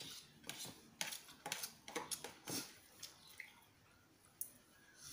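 Close-miked eating sounds: a spoon clicking and scraping in a bowl and mouth smacks as pancit noodles are chewed, in irregular soft clicks that thin out near the end.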